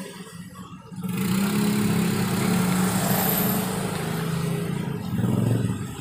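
An engine running steadily with an even pitch, starting about a second in and dropping away about a second before the end.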